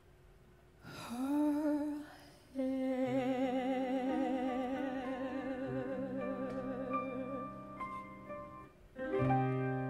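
Woman singing live over soft band accompaniment. After a brief hush she slides up into a phrase and holds one long note with a wide, even vibrato over a steady bass line. The voice stops a little before the end, leaving the band playing.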